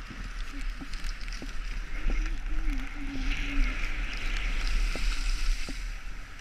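Skis scraping and sliding over packed snow during a downhill run, with wind rumbling on the microphone. The scraping hiss grows louder from about two seconds in, then eases near the end.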